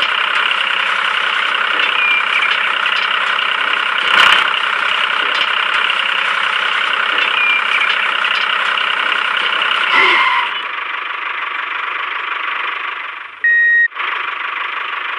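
Tractor engine sound running steadily with no breaks; its tone changes about ten and a half seconds in, and a short high beep sounds near the end.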